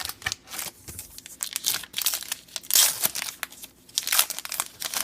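Crinkling and tearing of a trading-card pack wrapper as a pack of Topps Star Wars Evolution cards is torn open, a run of sharp crackling rustles with the loudest bursts about three and four seconds in.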